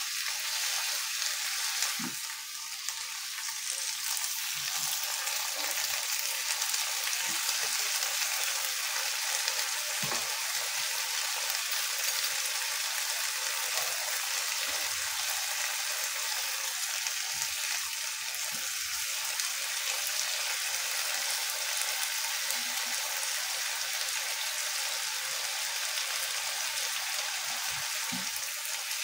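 Vegetables and tofu sizzling steadily as they are stir-fried in a nonstick wok, turned with a silicone spatula that gives a few soft knocks against the pan.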